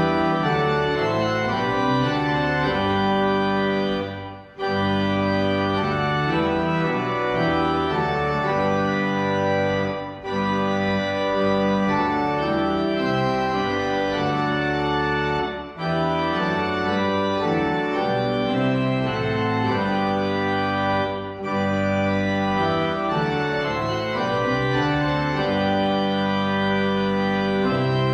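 Organ playing an offertory in sustained chords, with short breaks between phrases every five or six seconds.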